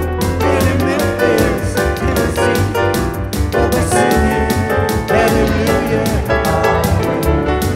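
Instrumental break of an upbeat rock-and-roll song: piano over a walking bass line and a steady drum beat, with no singing.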